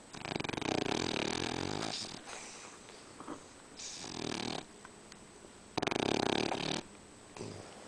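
A sleeping, dreaming furry pet snoring: a series of rasping, fluttering breaths, the first and one about six seconds in the loudest.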